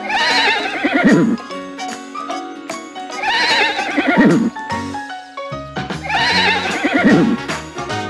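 Horse whinnying three times, about three seconds apart, each call quavering and falling in pitch, over light background music.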